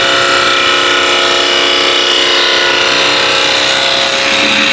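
Wood lathe running with a round-nose scraper cutting the spinning wooden blank: a steady scraping hiss over the lathe's motor hum.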